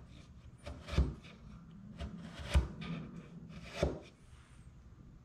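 A bench chisel paring thin shavings off pine dovetail pins by hand: three short scraping strokes of steel shearing wood, each with a light knock, with fainter scrapes between.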